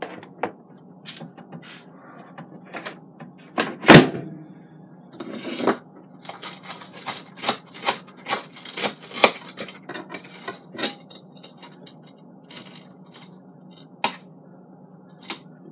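Plate and utensils handled on a kitchen counter: a sharp knock about four seconds in, then a run of light clinks, clicks and scrapes, with more scattered clicks near the end.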